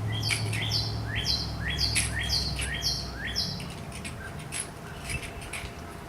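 Car jack being cranked up through a long extension rod, squeaking in a regular rhythm of about two squeaks a second as the screw turns. A low rumble underneath fades out about three and a half seconds in, and light clicks follow.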